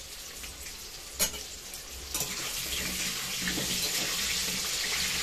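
Potato chunks frying in hot oil in an aluminium kadai: a steady sizzle that grows louder about two seconds in as they are turned with a spatula. One sharp knock on the pan comes about a second in.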